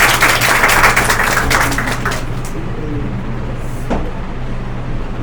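Audience applauding after a child's short recital, the clapping dying away about two seconds in and leaving a steady low hum, with one click near the end.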